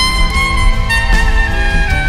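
Soprano saxophone playing the song's melody in long held notes that step between pitches, over a backing track with bass and a steady beat.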